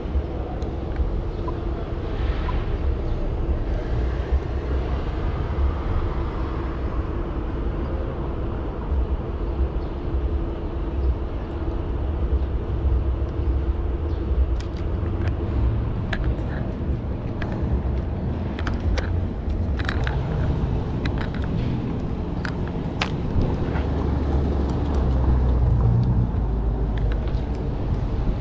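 City street ambience: steady traffic rumble, with a low steady hum through the first half and a scattering of sharp clicks in the second half.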